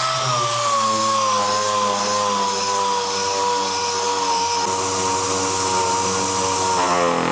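A 6-inch pneumatic air sander runs with a hissing air exhaust and a high whine that slowly sinks in pitch. It is slowing as the small compressor's tank pressure drains and can't keep up. Near the end it spins down and stops.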